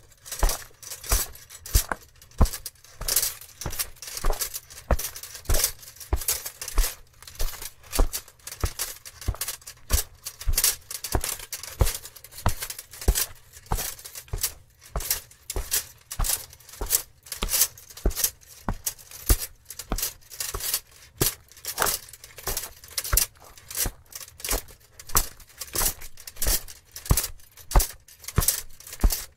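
Footsteps of a medieval knight in armour walking steadily, about two heavy steps a second, with a metallic clinking of the armour at each step.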